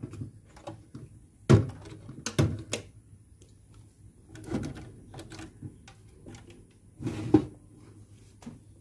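Wire connectors being pulled off a CRT television's main circuit board by hand: a handful of sharp plastic clicks and knocks, the loudest about a second and a half in and near the end.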